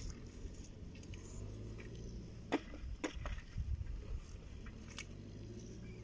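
Bare feet stepping through wet mud and grass, with a few soft clicks and two sharper ones about two and a half and three seconds in, over a low steady rumble.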